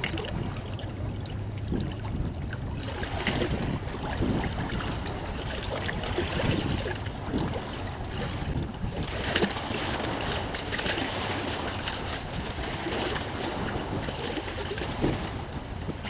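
Choppy water sloshing and splashing close to the microphone in irregular surges, with wind rumbling on the microphone.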